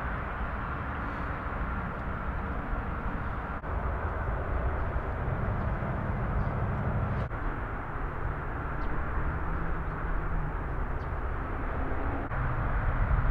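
Steady outdoor background rumble with a low engine hum that comes and goes.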